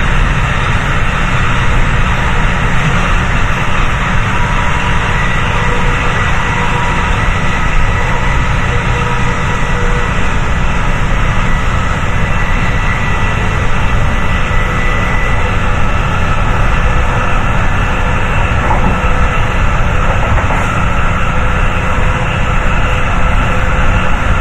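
The EMD 645F3 diesel prime mover of a MotivePower MP36PH-3C locomotive, heard from inside the locomotive and running loud and steady with the train under way. Faint high whining tones sit over its deep rumble.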